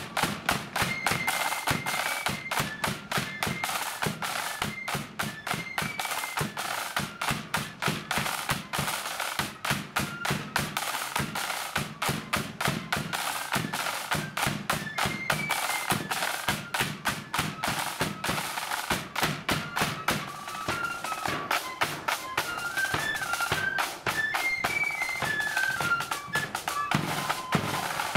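Marching flute band playing a tune: massed flutes carry a stepping melody over rapid snare drum rolls and the beat of a big bass drum, in the heavy-drummed blood-and-thunder style.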